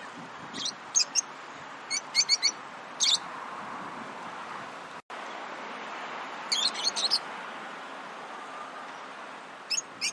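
Lovebirds chirping: short, sharp chirps in quick clusters of two to five, with pauses of a second or more between, over a steady background hiss. The sound drops out for a split second about halfway.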